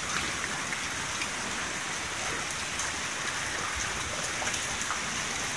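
Heavy downpour of rain on a paved street, a steady even hiss with faint scattered drips.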